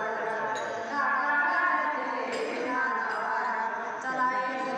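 Women singing a devotional bhajan together, one voice leading into a microphone.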